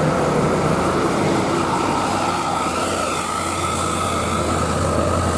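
Tour bus engine running close by, a steady low hum that grows stronger about three seconds in as the bus draws near.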